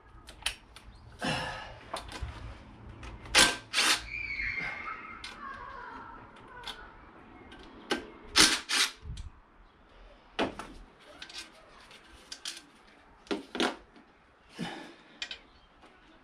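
Sharp metallic clicks and clatters of sockets and a cordless impact driver being handled and tried on engine bolts, with a short falling ring about four seconds in.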